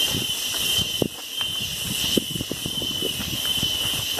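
Cicadas droning in a steady, high-pitched chorus, with irregular knocks and rattles of a mountain bike riding over the trail beneath it.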